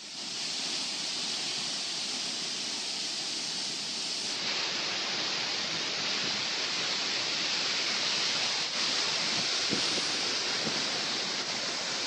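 Steady rushing of a waterfall and of the shallow stream tumbling over rocks below it.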